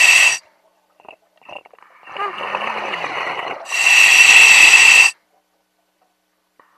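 Two-way radio transmissions: bursts of static hiss carrying a steady whistle, with a faint muffled voice between them. The last burst cuts off suddenly about five seconds in, as if the squelch has closed.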